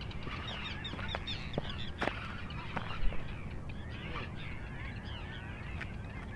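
Many birds calling at once, short rising and falling chirps overlapping throughout, over a low rumble of wind on the microphone. A few sharp clicks and a thump about three seconds in.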